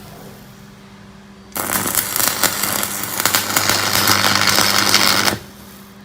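Arc welding with a 3.2 mm stick electrode: a loud, steady crackling arc is struck about a second and a half in and held for nearly four seconds, then broken. Before and after it the idling welding machine hums.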